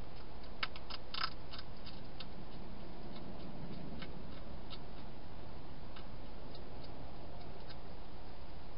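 Wild hedgehog crunching dry food: scattered crisp clicks, a quick cluster about a second in, then sparser ones, over the steady hiss of the camera's microphone.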